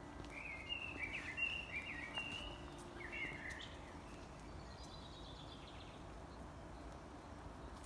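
Songbirds singing: a few loud warbling chirp phrases in the first half, then a fainter rapid run of high notes around the middle, over a low steady background noise.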